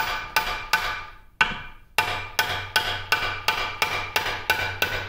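Hammer striking a steel punch in a lathe's cast-iron quick-change gearbox, each blow with a short metallic ring, to drive a part out. A few blows, a short pause, then steady blows about three a second.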